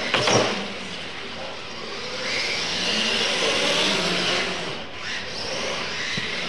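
Electric motors of radio-controlled monster trucks whining at full throttle as the trucks race, with a clatter near the start as one lands off a jump.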